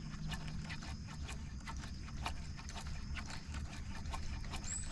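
Outdoor river-and-forest ambience: irregular sharp clicks over a low rumble, with a faint steady high drone and a short high whistle near the end.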